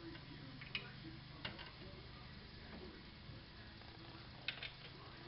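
Scattered sharp metallic clicks and clinks of bolts and hand tools being worked by hand while fitting a UTV winch mount: one about a second in, another soon after, and a close pair near the end, over a steady low hum.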